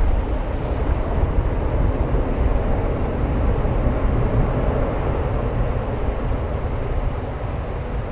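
Wind buffeting the microphone over the steady rush of an ANA Boeing 787-8 airliner's jet engines, which swell a little about halfway through.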